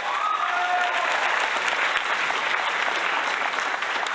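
Crowd applauding: dense, steady clapping that has swelled in just before and holds at full level.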